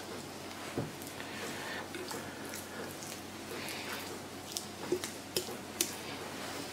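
Hands rubbing compound butter over the skin of a raw whole chicken: soft squishing and patting, with a few light clicks.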